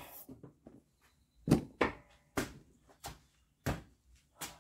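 Footsteps of a person walking: about six even steps, roughly half a second apart, starting about a second and a half in.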